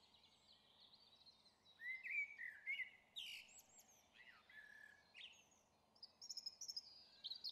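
Faint birdsong: scattered chirps and quick sliding whistled notes, busier near the end.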